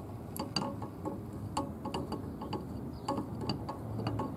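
Irregular metallic clicks and clinks, roughly two a second, each with a short ring, as wrenches shift and bite on a hose bibb and its copper supply pipe while the bibb is being turned loose.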